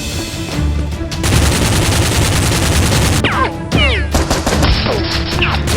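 Dense automatic gunfire sound effects, a continuous rattle of rapid shots over background music, with several falling whistling sweeps about halfway through.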